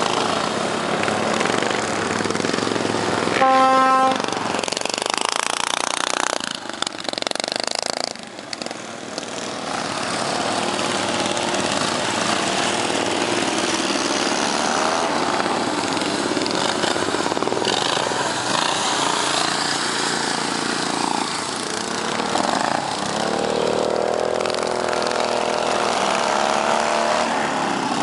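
Racing ride-on lawn mower engines running and revving, their pitch rising and falling as they accelerate. A short horn blast sounds about three and a half seconds in.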